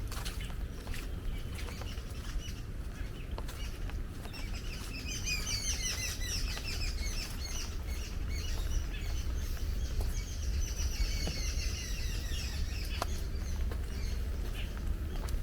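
Birds chirping, a dense chattering run of short calls starting about five seconds in and thinning out near the end, over a steady low rumble with scattered light ticks.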